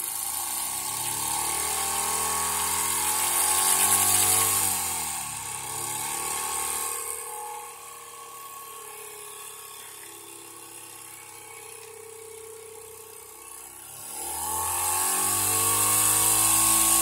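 Wilesco D455 toy steam engine running fast with a high whir and hiss. It speeds up over the first few seconds as its steam valve is opened, settles to a slower, quieter run in the middle, then speeds up and gets louder again near the end.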